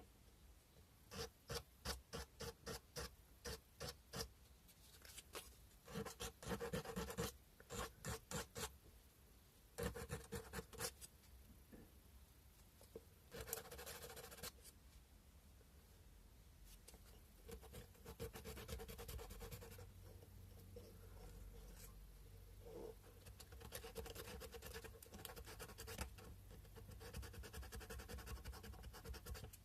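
Sandpaper rubbing on a cow-bone fish hook carving in short back-and-forth strokes, about two a second, in several runs, then a steadier, more continuous rub in the second half.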